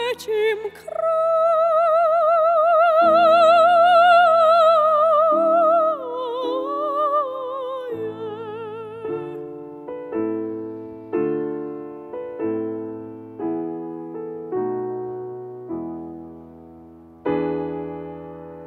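A classical soprano holds a long high note with wide vibrato over grand piano accompaniment, then ends with a falling phrase about eight seconds in. After that the piano plays on alone in slow chords, about one a second, each fading, with a louder chord near the end.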